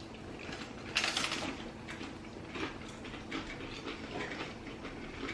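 Crisp, crackling crunches of thin cocoa-glazed corn cakes being broken apart and bitten, the loudest crackle about a second in, followed by scattered smaller crunches.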